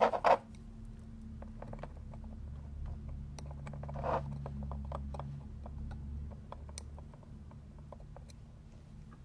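Light scattered clicks and ticks of steel tweezers working the small setting parts of a Seiko 62MAS watch movement, with a couple of soft scuffs, over a steady low hum.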